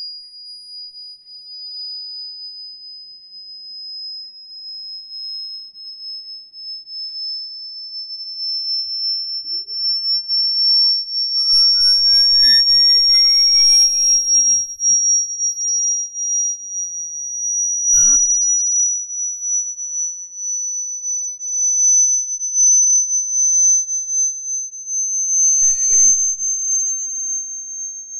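Pure sine tone from an 18 cm brass Chladni plate driven by a slow frequency sweep: a single high, piercing tone gliding slowly upward, swelling louder in the middle. There are a couple of faint clicks, one about two-thirds in and one near the end.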